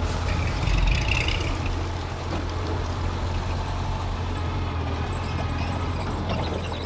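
Bulldozer's diesel engine running steadily under load, with a brief higher squeal about a second in.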